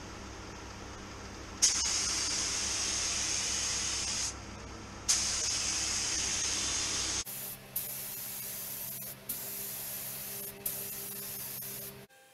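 Compressed-air gravity-feed paint spray gun hissing in trigger pulls as it sprays paint: a long pass starting about a second and a half in, a second one about five seconds in, then several shorter passes with brief breaks. A steady low hum sits under it.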